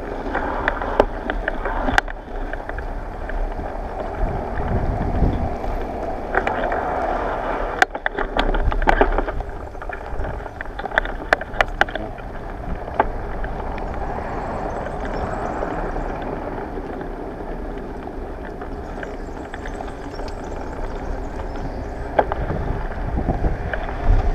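Bicycle ride: steady rushing noise from tyres and wind, with scattered sharp knocks and rattles.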